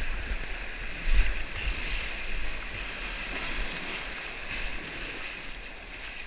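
Rushing, splashing whitewater of a river rapid around an inflatable raft's bow, with low buffeting on the camera microphone. The water noise is loudest about a second in and eases towards the end as the raft runs out into calmer water.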